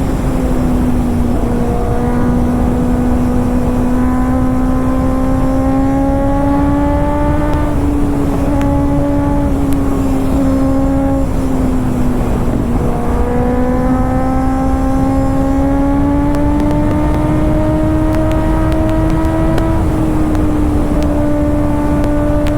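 Kawasaki ZX-6R inline-four with an SC-Project exhaust running under steady throttle on the move. Its note climbs slowly, drops back about halfway through, climbs again, then eases off near the end.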